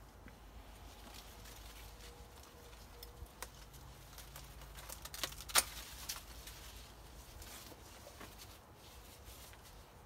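Corn leaves and husks rustling and crackling as an ear of corn is worked off the stalk by hand, with one sharp snap a little past halfway as the ear breaks free.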